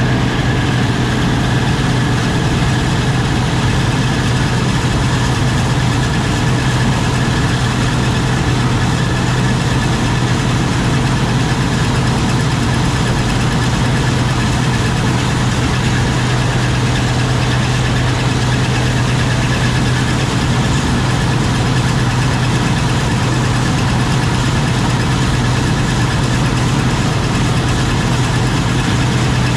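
An engine idling steadily, a constant deep hum with no change in speed.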